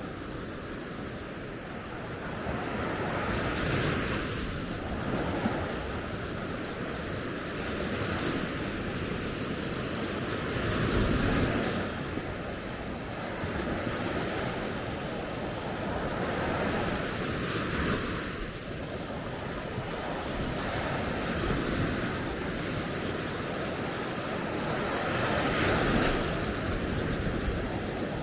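Sea waves breaking and washing up a beach, the surf swelling and easing about every four to five seconds.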